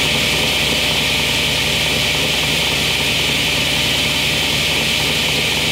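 Craftsman 10-inch belt-drive table saw running steadily at full speed, its motor humming under an even whirring hiss. Freshly lubricated and with its belt tightened, it sounds good.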